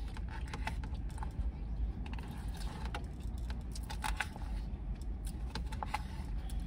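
Close-up eating sounds: a run of irregular crisp crunches and clicks, such as chewing a salad with croutons, over a low steady rumble.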